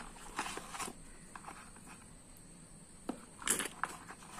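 Cardboard box and plastic fog lamps being handled: short rustles, scuffs and clicks in two brief clusters, about half a second in and again about three and a half seconds in.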